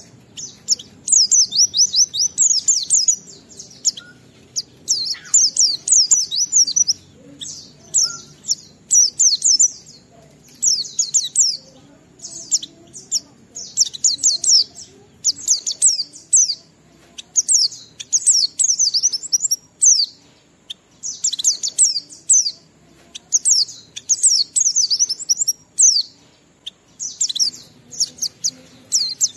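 White-eye (pleci) singing in its long, continuous 'ngalas' style: rapid high-pitched warbling phrases of quick falling notes, each about one to two seconds long, with short breaks between them.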